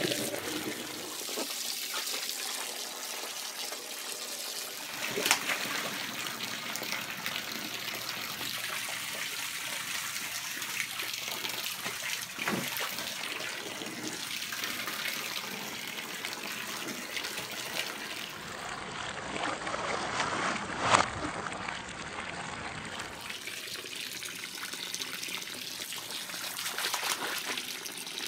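A stream of water from a hand-held hose pouring steadily into shallow pool water, with a couple of louder splashes, one about five seconds in and one about twenty-one seconds in.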